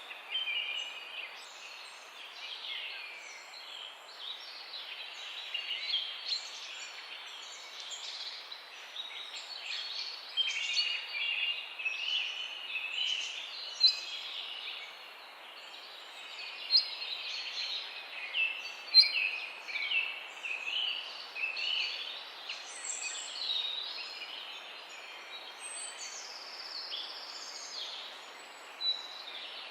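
Several songbirds singing at once in a dawn-chorus mix: many short chirps and quick warbled phrases overlapping without a break, over a steady background hiss.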